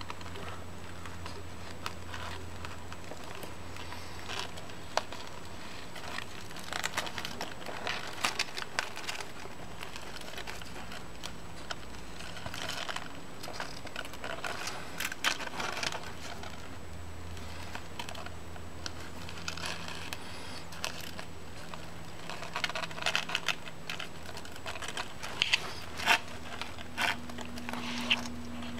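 Irregular bursts of small clicks and taps: baby tortoises biting and scraping at a plastic toy car with their beaks, with light rustling on cardboard.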